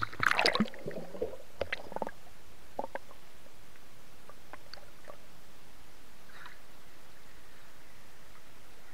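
Sounds picked up by a camera held underwater: a burst of bubbling and knocks in the first second, then a few scattered clicks over a steady hiss.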